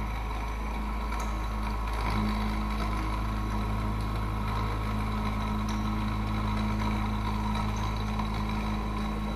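CNC bed mill running a circular pocket in quarter-inch aluminum plate with a 3/8-inch roughing end mill: the spindle and cutting make a steady hum and whine, and a low tone steps up about two seconds in.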